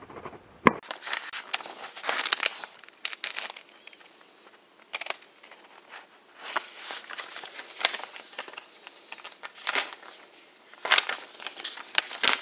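Pages of a paper instruction booklet rustling and crinkling as they are handled and turned, in irregular bursts that start about a second in.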